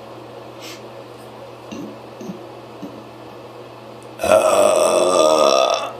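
A person's deliberate loud burp, forced out to be as loud as possible, starting about four seconds in and lasting about a second and a half, its pitch sinking slightly before it stops.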